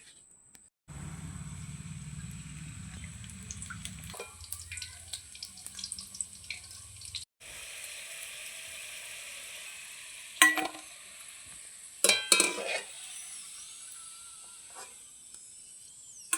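Food sizzling as it fries in a pan while it is stirred, with a low hum under the first half. Several sharp metal clanks of the utensil against the pan come about two-thirds of the way through.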